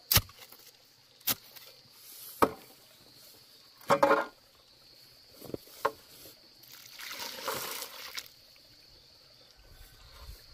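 Steel shovel scraping and knocking against a metal wheelbarrow while turning dry sand and cement, several sharp strikes over the first six seconds. About seven seconds in, water is poured into a hollow in the dry mix for a second or so.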